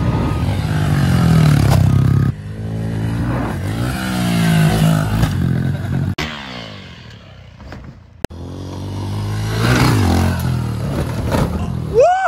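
Small dirt bike engine revving, its pitch rising and falling with the throttle. The sound breaks off and restarts abruptly a few times.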